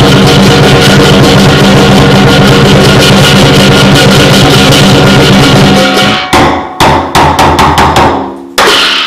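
Chinese lion dance percussion: drum and hand cymbals playing a fast, very loud continuous beat. About six seconds in the beat breaks into a string of separate hits and a short fade, then comes back in with a loud stroke near the end.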